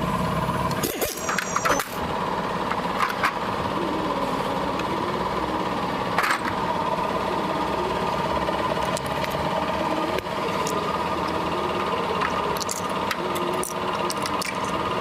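A machine runs steadily with an even mechanical hum made of several fixed tones, with a few short clicks and knocks of work on metal parts.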